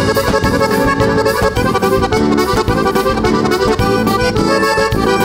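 Instrumental break of a vaneirão: a diatonic button accordion plays a lively run of quick notes over strummed acoustic guitar.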